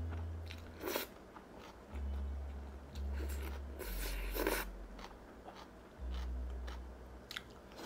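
A person eating cold ramyeon with crisp vegetables: chewing and crunchy bites, with two louder noisy bursts, a short one about a second in and a longer one around four seconds in.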